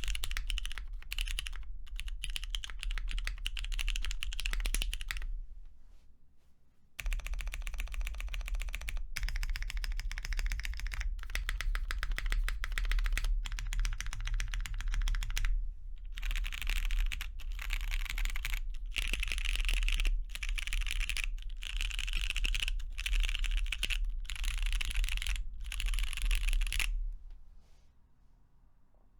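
Fast, continuous typing on a custom mechanical keyboard fitted with lubed and filmed Cherry MX2A Brown tactile switches on a carbon fibre plate, with GMK doubleshot ABS keycaps. There is a short break in the typing about five seconds in, and the typing stops shortly before the end.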